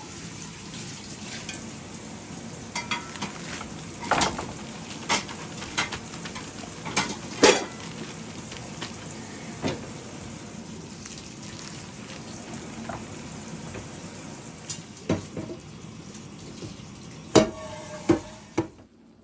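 Kitchen utensils and dishes clinking and knocking, about a dozen sharp knocks at uneven intervals, over a steady hiss. The sound cuts off suddenly just before the end.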